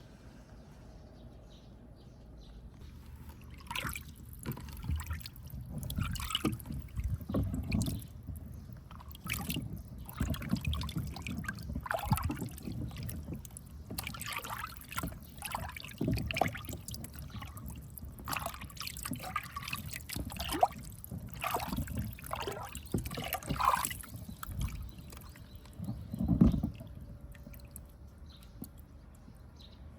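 Water trickling and splashing through a toy water marble run, with many irregular plops and knocks as balls move through it. It starts a few seconds in and dies away near the end.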